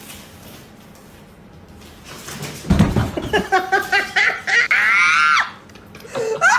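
A thump, then a run of loud, shrill cries broken up in quick bursts, with a long cry that falls in pitch about five seconds in and a short rising cry near the end.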